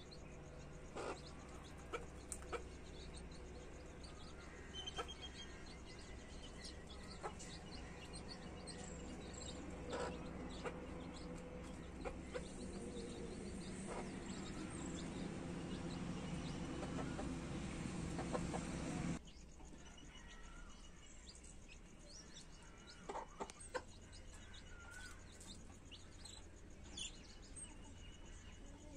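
A mother hen clucking and her newborn chicks peeping in short calls while they feed. Under them runs a steady background noise that grows louder and cuts off abruptly about two-thirds of the way through.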